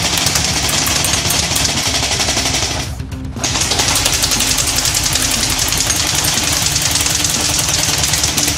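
Airsoft Steyr AUG rifle firing on full auto in two long bursts, with a short pause about three seconds in, as the BBs chew into a vinyl record.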